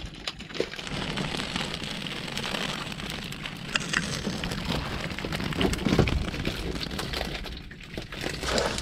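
Seawater pattering and splashing off a netted fish trap as it is hauled aboard, mixed with scattered clicks and knocks of the catch and gear being handled.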